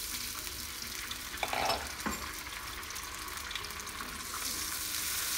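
Chili-tomato sambal, just thinned with a little water, sizzling steadily in a nonstick wok, with a spatula stirring it and scraping the pan briefly about one and a half seconds in.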